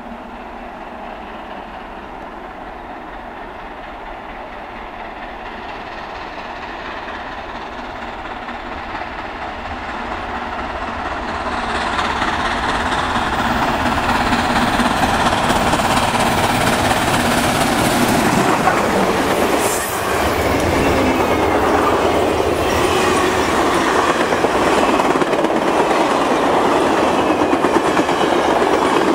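Southern Pacific 4449, a 4-8-4 steam locomotive, approaching and growing steadily louder, then rushing past about two-thirds of the way in. Its passenger cars follow at speed, wheels clicking over the rail joints.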